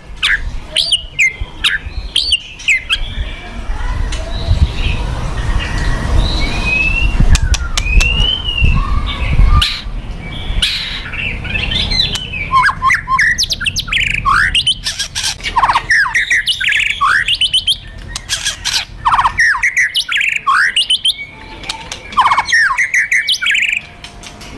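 White-rumped shama (murai batu) giving fast, aggressive fighter calls: sharp, quickly sweeping whistled notes packed together with dry crackling rattles (kretekan). A low rumble sits under the calls for the first ten seconds or so.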